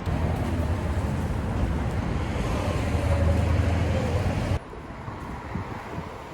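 Motor vehicle driving: a steady engine and road rumble that drops suddenly to a quieter rumble about four and a half seconds in.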